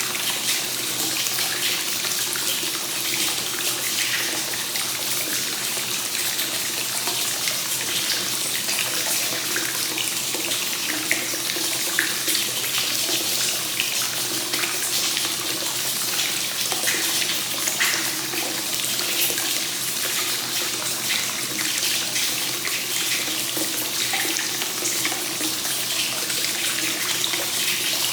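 Free-flowing hot spring source water pouring steadily into a bath, a continuous unbroken splashing flow with small splashes now and then.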